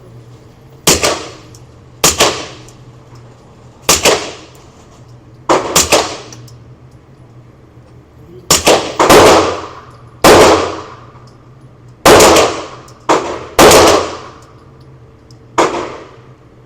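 Suppressed shots from a Canik SFT Pro 9mm pistol with a SilencerCo Hybrid 46 suppressor. About a dozen single shots are fired at uneven intervals of one to two seconds, each a sharp crack with a short ringing tail.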